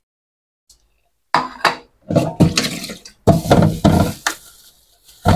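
Dishes, a spoon and a metal strainer clinking and clattering at a kitchen sink while raw ground pork is handled. The sounds come in an irregular run of knocks and scrapes, starting about a second in.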